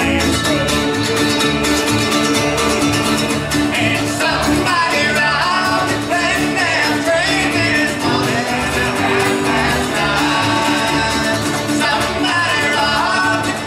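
Live bluegrass band playing at an even tempo: bowed fiddle, mandolins, banjo and acoustic guitars over an upright bass.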